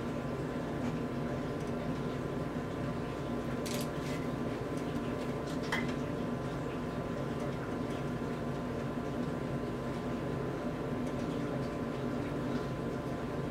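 Steady machine hum made of several even tones, with a couple of faint clicks about four and six seconds in.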